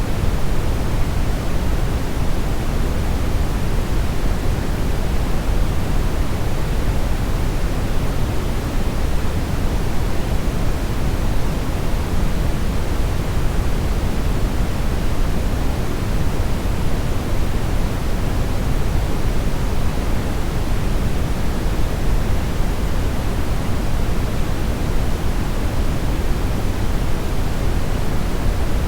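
Steady synthetic brownish noise: an even, unchanging hiss weighted toward the deep end, with no events or tones in it.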